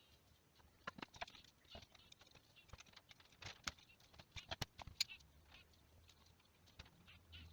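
Scattered small clicks and taps of hand tools and metal parts as the internal plates of a power steering pump are worked out of the housing. The clicks are busiest for the first few seconds and thin out after.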